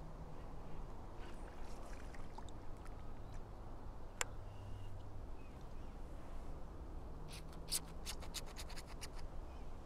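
Spinning reel being wound in to retrieve a frog lure, a quick run of about ten clicks near the end, over scratchy handling and rubbing noise. A single sharp click comes about four seconds in, and a faint steady low hum runs underneath.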